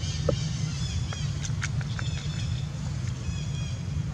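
Many short, high-pitched animal chirps and squeaks, with a few clicks, over a steady low rumble.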